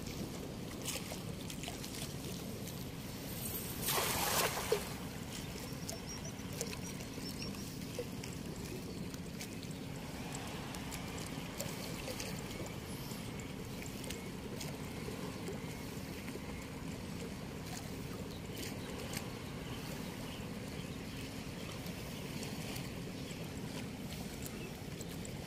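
Steady rush of flowing water, with a low steady hum underneath. About four seconds in there is a louder burst of noise lasting about a second.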